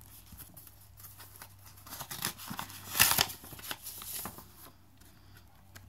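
Paper envelope rustling and crinkling as it is opened and a greeting card is worked out of it, with short scratchy paper noises throughout and a louder burst about three seconds in.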